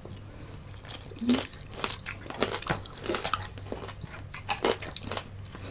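Close-miked eating sounds: chewing crispy fried food, fried tilapia among it, with irregular short crunches and wet clicks scattered through.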